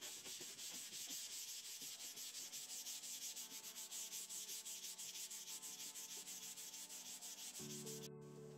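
Hand sanding across a teak veneer desk top, a scratchy hiss in quick, even back-and-forth strokes. Near the end the sanding stops and music comes in.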